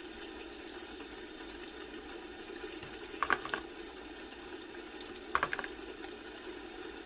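Computer keyboard keys clicking in two short runs of a few keystrokes, about three seconds in and again about five seconds in, over a steady low background hum.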